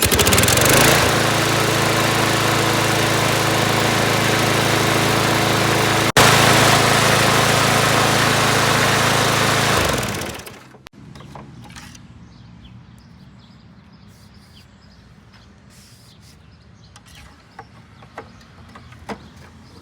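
Lawn mower's small engine starting and running steadily for about ten seconds, then shut off and winding down, followed by faint clicks and handling noises. The engine is smoking because its crankcase is overfilled with oil.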